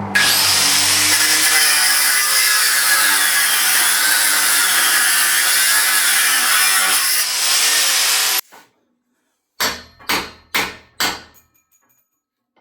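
A power tool running on the steel chassis rail for about eight seconds, its pitch wavering as the load changes, then cutting off suddenly. Four short, sharp bursts follow about half a second apart.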